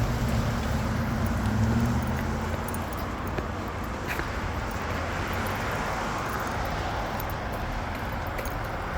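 Road traffic at a signalised intersection, with a vehicle engine louder in the first couple of seconds and then easing off. Over it, faint repeating ticks, the kind an accessible pedestrian push button's locator tone makes.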